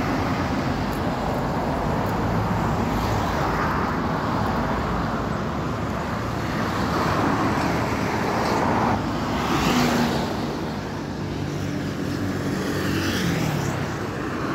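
Steady road traffic on a highway, with cars passing close by; one goes by louder about ten seconds in.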